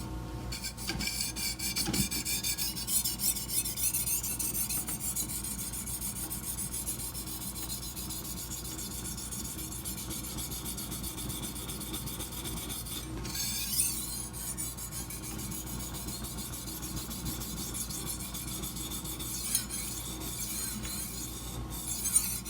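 Steel edge of a chef's knife being stroked over a sharpening stone: continuous dry scraping strokes as the tip of the blade is worked.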